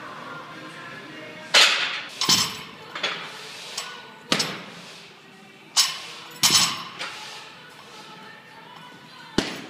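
A series of loud, sharp metallic clanks of barbell weight plates, about seven irregular strikes with a short ring after each.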